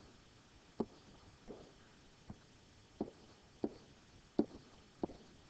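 Faint, sharp taps of a stylus tip on a tablet or touch screen while short arrows and letters are drawn by hand, about seven clicks spaced under a second apart.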